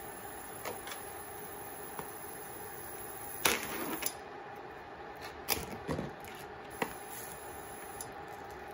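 Steady hum of an electric cooktop heating a pan of oil, with a few sharp clicks and crinkles from a plastic tray of raw burger patties being handled; the loudest click is about three and a half seconds in.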